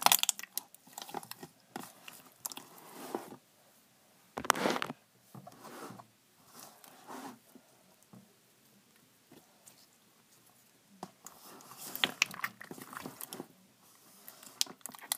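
Fingers poking and pressing soft slime, giving clusters of small crackling clicks and pops, with a quiet stretch in the middle.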